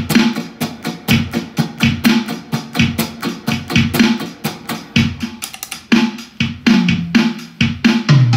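Electric guitar strummed in fast, even down-up strokes on a held chord, about eight strokes a second, with a percussive, drum-like attack. This is the basic down-up strumming practice pattern. The strokes thin out near the end.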